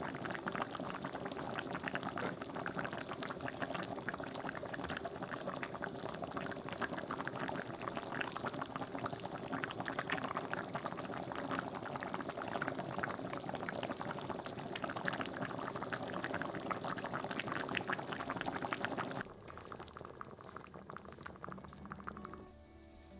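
Sundubu jjigae (Korean soft tofu stew) boiling hard in a pot: a dense, steady crackle of bubbles bursting. About nineteen seconds in it drops off suddenly to a much quieter sound.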